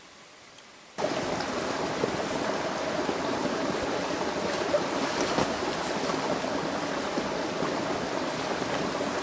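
Small forest stream babbling and trickling steadily. It cuts in suddenly about a second in, after faint hiss.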